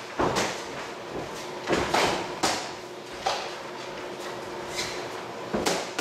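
Punches from boxing gloves landing during sparring: about seven sharp smacks, some in quick pairs, at uneven intervals.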